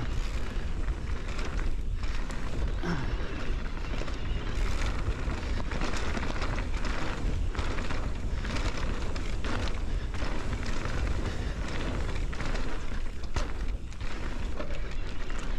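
Wind buffeting the microphone on a mountain e-bike riding down a dirt trail, a steady low rumble with tyre noise on the dirt and frequent short knocks and rattles from the bike.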